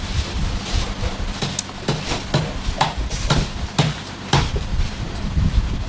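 Irregular knocks from kitchen tools striking during street-food preparation, about two a second, over a steady low hum.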